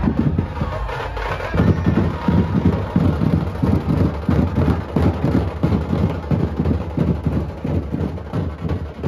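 Loud procession music made of heavy, fast drumming with strong bass, played on a steady rapid beat. The beat thins out briefly near the start and comes back hard about a second and a half in.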